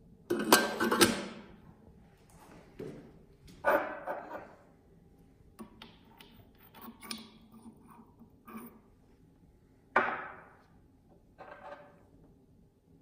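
A handful of separate metallic knocks and clunks, with a cluster in the first second and another sharp one about ten seconds in, several leaving a short ringing tail, over a faint steady hum: parts of a Michael Deckel SOE tool and cutter grinder being handled and moved.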